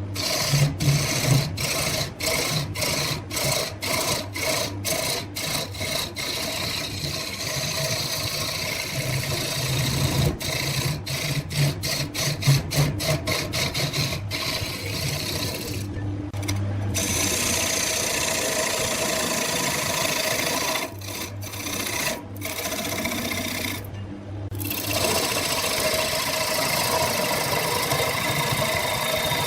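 A woodturning lathe running with a tool rubbing against the spinning wood: a steady motor hum under a scraping, rasping noise. For the first several seconds, and again in the middle, the sound keeps dropping out briefly about twice a second.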